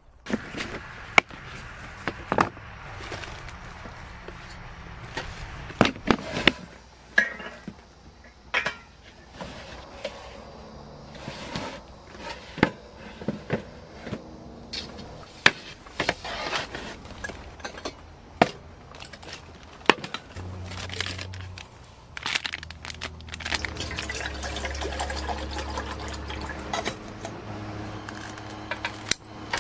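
Camp-kitchen handling: repeated sharp clinks and knocks of cookware and gear being picked up and set down on a table, with water being poured. A steadier rushing sound comes in during the last several seconds.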